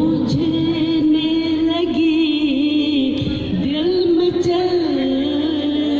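A woman singing a song through a microphone and loudspeakers, holding long, wavering notes.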